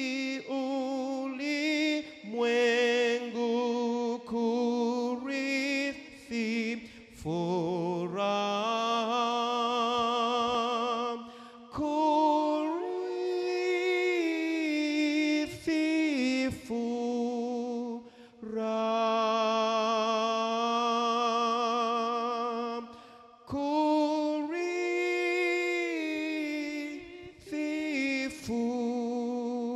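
A man singing a verse of a Swahili hymn into a microphone, in slow phrases of long held notes with vibrato and short breaks between lines.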